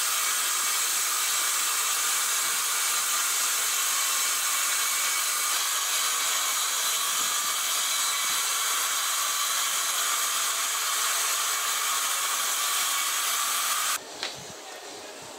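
Corded circular saw running steadily as it rips a wooden plank lengthwise, then stopping abruptly near the end, followed by a single light knock.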